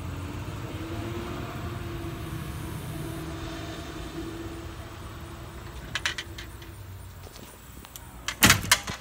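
Vehicle engine idling with a steady low rumble, then sharp knocks and rustling from the phone being handled near the end.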